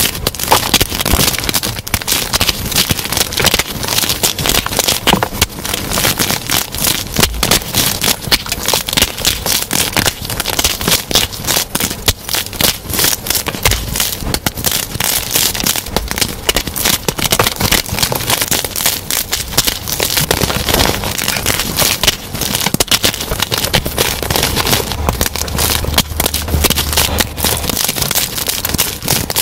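Dense crunching and crackling of gym chalk blocks crushed and crumbled between bare hands, sped up to double speed, so the clicks come thick and fast without a break.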